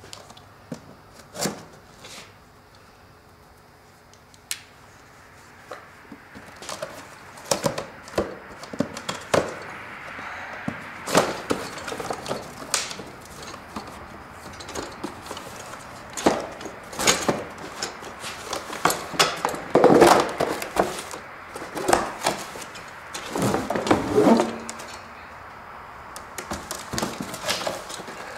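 A cardboard box being opened by hand: a box knife slitting it, then the cardboard rustling and scraping as the flaps are pulled back, with scattered sharp knocks as a folding metal tire step is worked out of the box. The first few seconds are fairly quiet, with the handling noise and knocks coming from about six seconds in.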